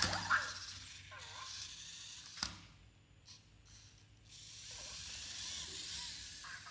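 Anki Cozmo toy robots making faint warbling electronic chirps, with a sharp click about two and a half seconds in. In the second half a soft whirring hiss comes in as a robot drives and raises a light cube on its lift arm.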